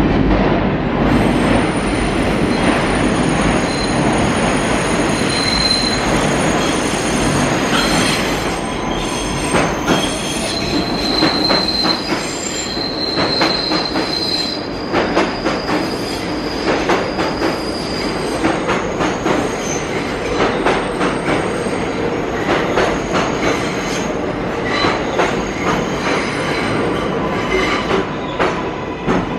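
NYC Subway R142A train arriving on a curved track: steel wheels squeal against the rails in high thin tones and clack over rail joints as it rolls in and slows beside the platform. The squeal fades about halfway through, leaving the running noise and clacking.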